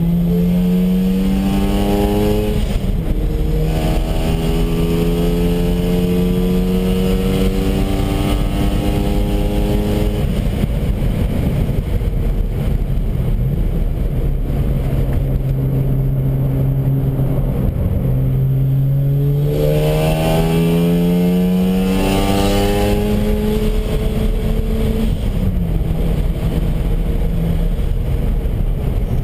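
Mazda RX-7 FD3S's twin-turbo rotary engine heard from inside the cabin at track pace. The revs climb, drop sharply at an upshift about three seconds in, and climb again. After about ten seconds it runs at lower, steady revs, then pulls up through the revs with another upshift about twenty-two seconds in, all over steady road and wind noise.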